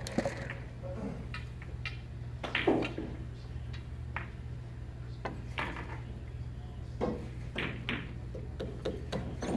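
Quiet pool-hall room tone: a steady low electrical hum with a few scattered light knocks and clicks, the most distinct about a third of the way in, while a player steps up to the table and settles into his stance.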